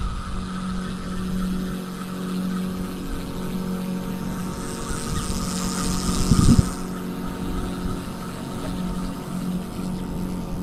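A motorboat's engine runs steadily at an even pitch, a constant hum. Around the middle a rushing hiss swells and ends in a brief thump.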